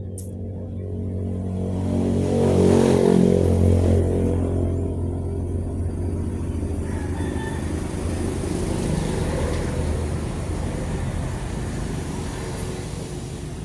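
A motor vehicle's engine running close by, swelling to its loudest about three seconds in and then slowly easing off.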